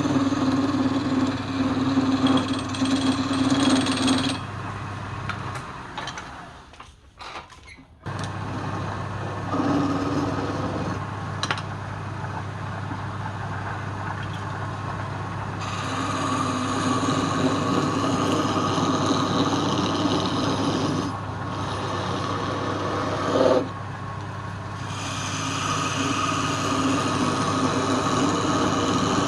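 Lathe motor running with a steady hum while a tool cuts into the spinning workpiece in stretches of louder rasping noise. The motor sound cuts out about five seconds in and comes back abruptly about two and a half seconds later.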